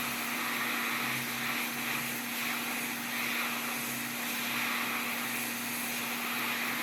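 Hot-air rework station blowing steadily onto the board, a constant rushing hiss with a low hum beneath, while the solder on the PS5 port is melted for removal.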